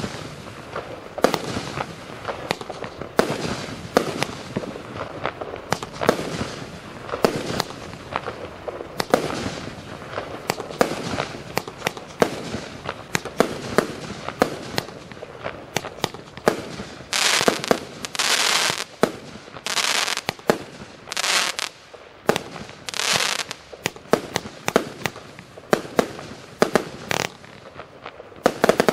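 A Happy Family Fireworks HF 255-1704S 255-shot compound fireworks cake firing, with rapid sharp reports as its shells launch and burst. Past the middle come several longer bursts of hiss.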